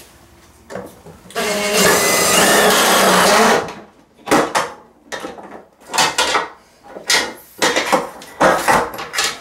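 Cordless drill driving screws to fasten a shade's side rail: one sustained run of about two seconds, followed by several shorter bursts.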